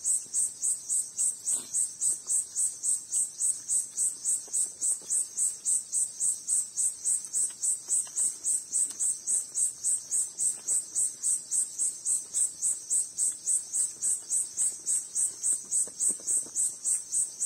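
An insect chirping in a steady, even rhythm of about four high-pitched pulses a second.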